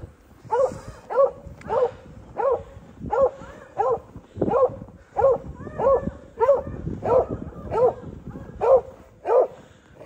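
A dog barking over and over at a steady pace, about three barks every two seconds, each bark alike.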